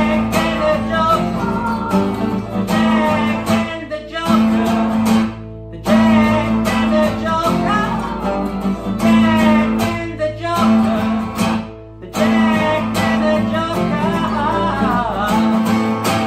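Acoustic guitars strumming chords, with a man singing over them, in phrases broken by short pauses.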